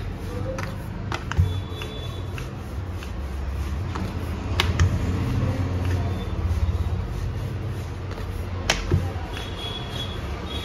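Wooden rolling pin rolling out a disc of dough on a wooden chopping board: a steady low rumble that swells and eases with the strokes, with a few sharp clicks and knocks.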